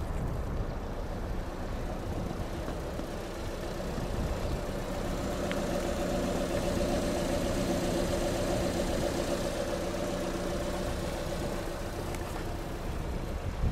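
A motor vehicle's engine running steadily nearby, its hum swelling about four seconds in and fading away near the end, over a low rumble.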